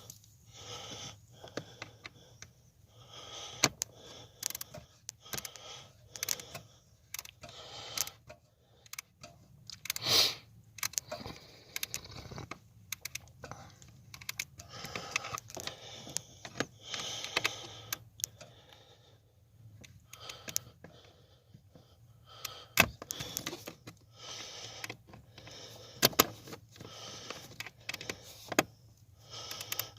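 Irregular clicks, clinks and short scrapes of hand tools, screws and the plastic blend door actuator being handled and fastened back in place under a Toyota Prius dashboard, over a faint low steady hum.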